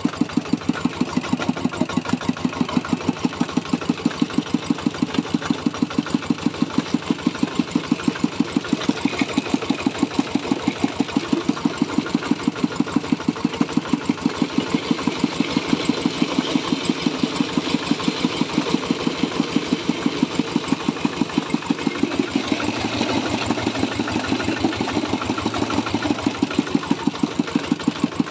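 Diesel engine of a corn grinding mill running steadily with a rapid, even pulsing beat.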